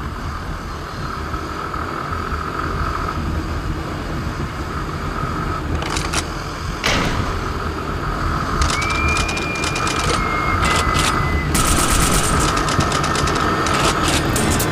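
Motorcycle riding at speed, its engine and the wind rumbling on the mic. From about six seconds in, a rapid series of sharp cracks and pops comes in, thickest in the second half.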